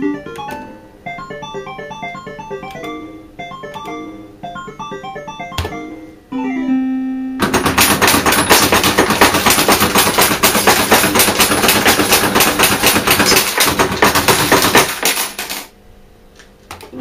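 JPM Eachway Nudger Mk3 fruit machine playing its beeping electronic jingles, with a held tone about six seconds in. It then breaks into about eight seconds of loud, rapid clattering, coins pouring from the payout hopper into the metal tray after a win line of three melons, which stops about a second and a half before the end.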